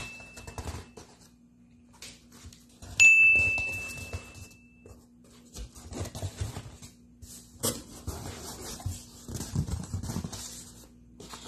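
A single bright bell-like ding, an edited-in sound effect, rings out about three seconds in and fades over a couple of seconds. Later comes a stretch of cardboard rustling and scraping as a boxed tripod is slid out of its shipping carton.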